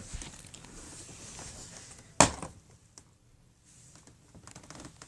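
A single thud of a flipped water bottle hitting the surface, about two seconds in, dying away within half a second.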